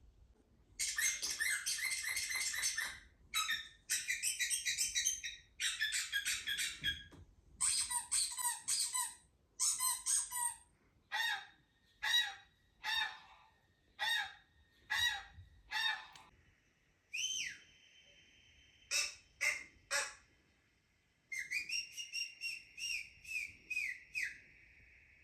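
Bird calls played back: several bursts of rapid, high chattering, then a run of short calls about one a second, then held whistled notes near the end.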